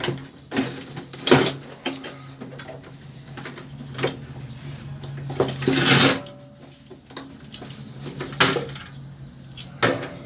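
Clatter and knocks of a window air conditioner's casing and parts being handled as it is taken apart, with a longer rasp about six seconds in. A steady low hum runs underneath.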